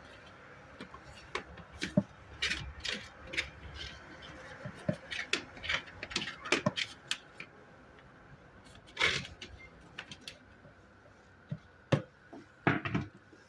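Kitchen handling sounds while food is being prepared in a bowl: a scattered string of light clicks, taps and brief rustles. There is a louder scrape or rustle about nine seconds in and two sharp knocks near the end.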